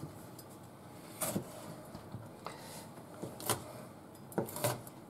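About half a dozen light kitchen knocks and clicks, spaced irregularly over a few seconds: utensils and dishes being handled while a salad is prepared.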